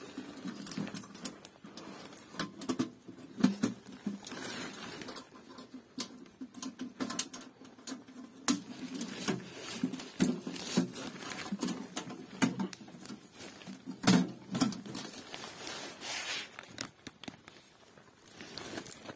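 A sheet-steel tent wood stove being handled and unpacked: irregular light metal clinks, knocks and scrapes as its parts are pulled out and fitted, with a sharper knock about fourteen seconds in.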